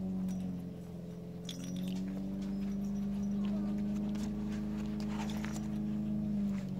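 A steady mechanical hum, the loudest sound throughout, with faint scuffles and rustles from young puppies crawling over fleece bedding.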